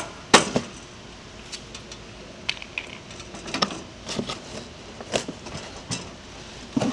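Irregular light clicks and knocks as a turf-tread wheel is slid onto a metal axle and fitted into place.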